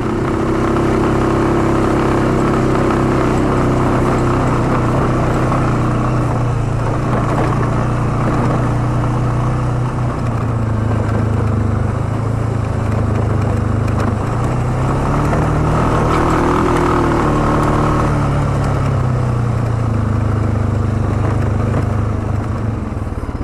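ATV engine running as the quad rides along a trail, its note rising and falling with the throttle. The pitch climbs about two-thirds of the way through, then eases back and drops off near the end.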